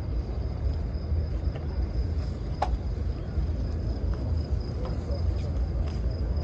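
Background murmur of a crowd of people walking in an open courtyard, over a steady low rumble on the phone's microphone. A faint steady high tone runs underneath, and a single sharp click comes about two and a half seconds in.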